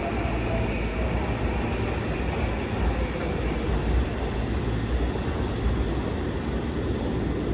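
Subway train's running noise as it pulls away down the tunnel from an underground station: a steady low rumble, with a faint thin tone in the first second or so.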